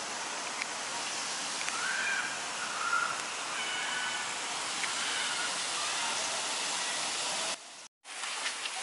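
Steady rushing hiss, with a few faint high chirps about two to three seconds in. It cuts out for about half a second near the end.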